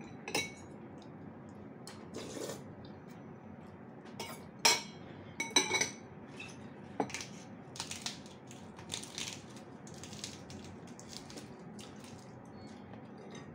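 Cutlery clinking and scraping against a bowl of noodles while the noodles are picked out of the minced pork, in scattered clinks with a brief ring; the loudest knocks come about five to six seconds in, followed by softer scraping.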